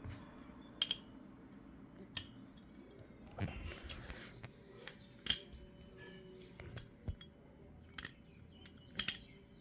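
Cheap clone metal balisong being flipped, its handles clicking and clacking against each other and the blade. About ten sharp metallic clicks come at uneven intervals, a few in quick pairs.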